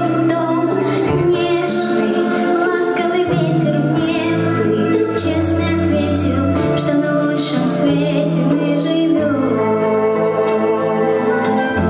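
A young girl singing over a backing track, with a sustained bass line that changes note every second or two.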